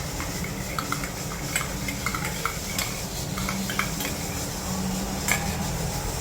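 A spoon stirring jaggery powder into onion juice in a small bowl, with light, irregular clinks of the spoon against the bowl.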